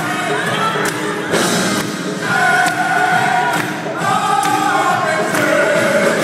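Gospel choir singing in long held chords, with occasional sharp hits in the accompaniment.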